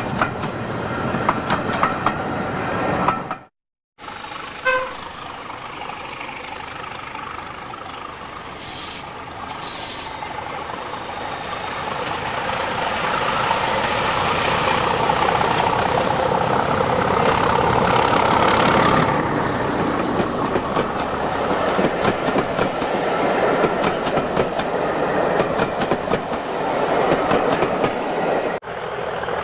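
Railway coaches rumbling past. After a break comes a short horn toot, then a Class 31 diesel locomotive approaches hauling a train, its engine growing steadily louder with a rising whine until it passes close by. Its coaches follow, clattering over the rails.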